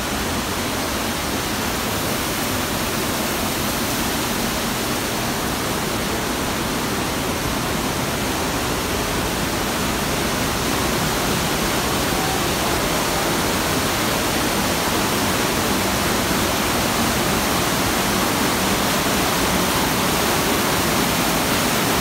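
Underground waterfall rushing inside a cave: a steady, even wash of falling water that grows slightly louder toward the end.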